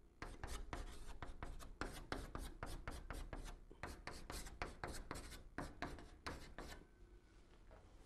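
Chalk writing characters on a blackboard: a quick, uneven run of short scraping and tapping strokes that stops about seven seconds in.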